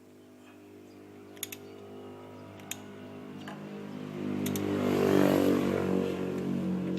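Isuzu D-Max diesel engine idling at a steady speed, growing much louder about four seconds in. A few light clicks sound before the swell.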